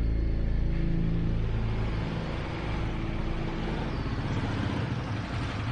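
Small motorcycle engine running with a rapid low pulse, taking over as sustained background music fades out over the first two seconds.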